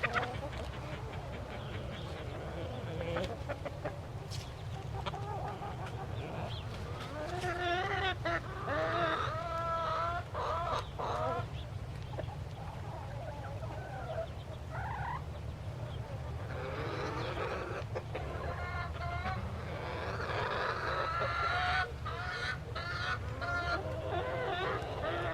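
A flock of chickens clucking, with bursts of overlapping calls that grow busier in the middle and again toward the end, over a steady low hum.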